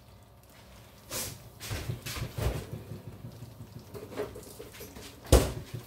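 Kitchen handling noises: a few soft knocks and shuffles, then one sharp knock about five seconds in.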